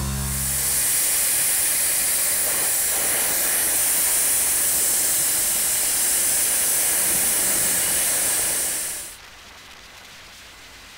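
Cold Jet dry ice blaster firing a continuous high-pressure jet of compressed air and dry ice pellets: a loud, steady hiss that cuts off suddenly about nine seconds in.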